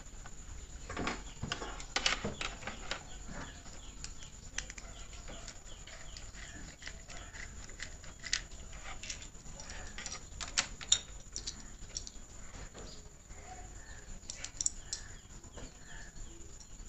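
Scattered small clicks and taps from hands working wire ends and a plastic two-pin plug with a small screwdriver, over a faint steady low hum.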